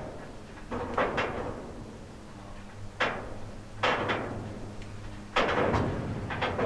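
Sharp metallic clanks and knocks, some in quick pairs, a second or two apart, each with a short ringing tail, from the couplers and bogies of freight hopper wagons creeping along the track.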